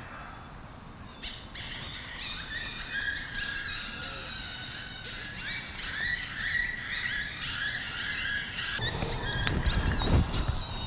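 FoxPro X24 electronic predator call playing coyote pup distress: layered high, wavering whines and yelps that switch on about a second in and cut off abruptly near the end.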